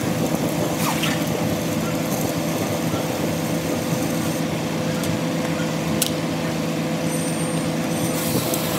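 Electric welding arc crackling and sizzling steadily, over a steady electrical hum.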